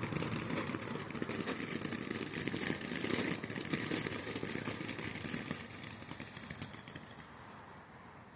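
A lit ground firework hissing and crackling as it sprays, dying down over the last few seconds as it burns out.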